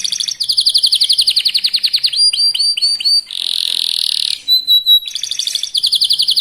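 Young domestic canary singing a fast, loud song of rapid trilled rolls. Partway through, the trills give way to a run of quick sweeping notes and a harsh buzzy phrase, then a few short whistles before the rapid trill resumes.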